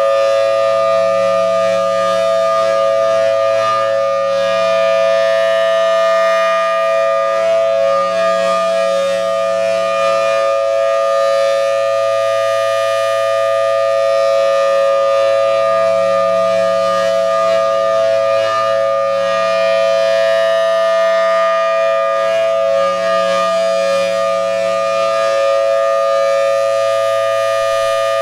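Federal Signal Thunderbolt 1000T outdoor warning siren sounding a steady full-alert tone, a loud held two-note chord that swells and dips slightly.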